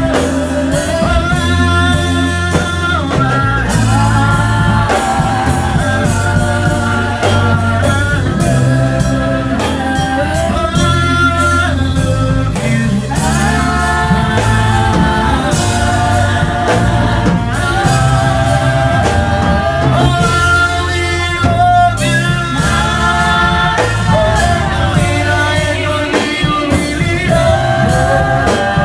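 Worship-band music with singing over electric guitar, bass and drums, played loud and steady.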